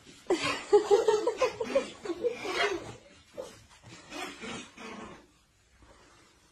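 Toddler laughing hard in a rapid run of giggles for a couple of seconds, then a few shorter, quieter giggles.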